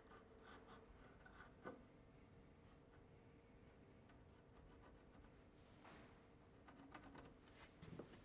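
Faint scratching and rubbing of a marking gauge scoring a short line into a wooden door edge, in a few brief strokes over near silence.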